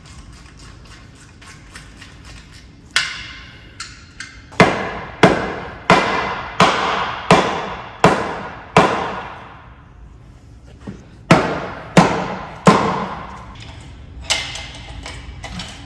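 Hammer blows on metal, each with a short ringing decay. A few light taps come first, then a run of seven heavy strikes at a steady pace of about one and a half a second, a pause, and three more.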